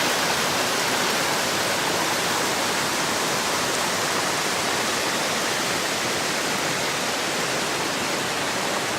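Jinba Falls, a spring-fed waterfall, pouring with a steady, unbroken rush of falling water.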